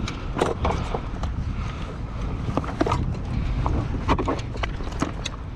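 Steady low wind rumble on the microphone, with scattered sharp clicks and knocks from handling a fish and a metal lip gripper in a plastic kayak.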